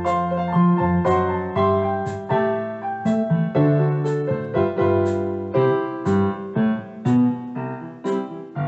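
Background piano music: notes and chords struck at an even, unhurried pace, each one ringing and fading before the next.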